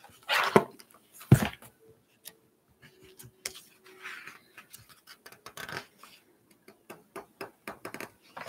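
Handling of a picture book: a couple of knocks in the first second and a half, the loudest about a second in, then a run of small clicks and soft paper rustles as the book is moved and its pages handled.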